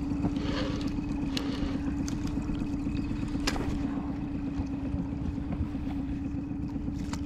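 Boat motor running steadily at one even pitch, with a low rumble beneath and a few faint clicks over it.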